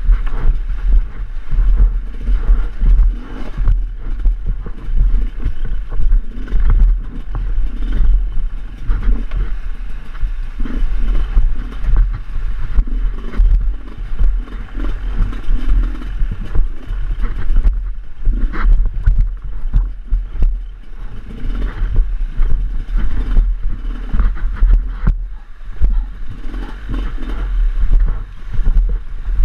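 Hard enduro dirt bike engine revving up and down unevenly as the bike is ridden slowly over rocks, with clattering from the bike over stones.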